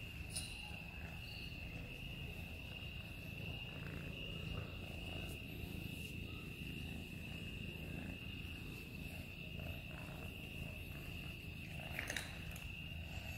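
Insects trilling steadily at one high, unchanging pitch over a low rumble, with a sharper knock about twelve seconds in.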